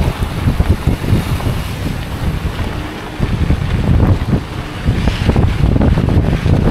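Wind buffeting the microphone of a camera carried on a moving electric unicycle, a loud, gusty low rumble that rises and falls unevenly.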